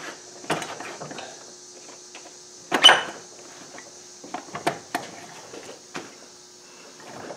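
Scattered metallic clunks and knocks from the rear axle and wheel hub of a Kawasaki KLR 650 motorcycle as the wheel is worked into line and the axle slid through. The loudest is a single clank about three seconds in, with a brief ring, and a few lighter knocks follow around four to five seconds in.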